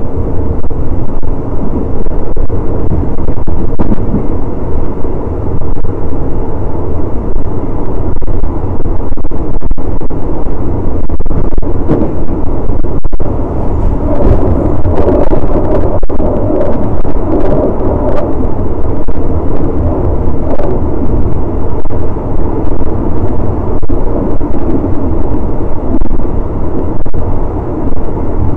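Continuous loud running noise of a moving passenger train, heard at an open carriage window: wheels running on the rails and rushing air, with a few brief knocks.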